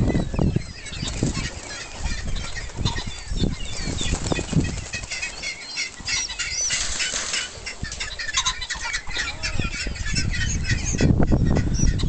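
A flock of pheasants in a pen, with wings flapping and many short, high chirping calls. Low rumbles underneath grow louder near the end.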